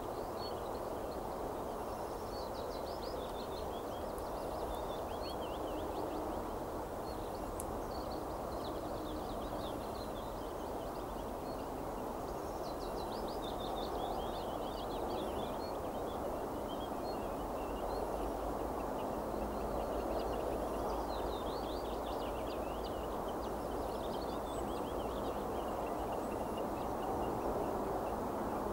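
Steady rushing background noise, with small songbirds singing several bursts of high, fast trilling notes.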